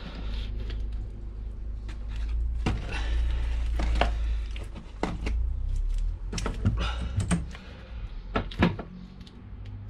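A car driveshaft and CV joint being handled and worked on a wooden workbench: scattered knocks and clicks of metal against wood and metal, over a steady low rumble.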